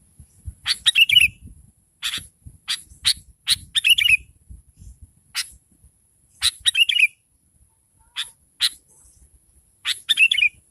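Sooty-headed bulbul (kutilang) calling: short sharp chirps and bubbly call phrases in bursts every second or so, with fuller phrases at about one, four, seven and ten seconds in. A faint steady high-pitched tone runs underneath.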